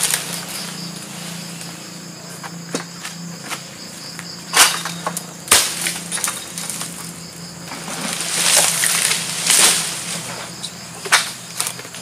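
Long-handled egrek pole sickle knocking and scraping against oil palm fronds and fruit-bunch stalks in the crown. It gives two sharp strokes about four and a half and five and a half seconds in, and a longer rustling scrape around eight to ten seconds in, over a steady insect hum.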